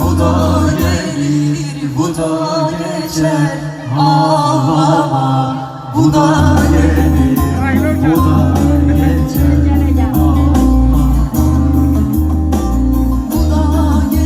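A man singing over a band with a heavy bass line. The bass drops out for the first few seconds and comes back strongly about six seconds in.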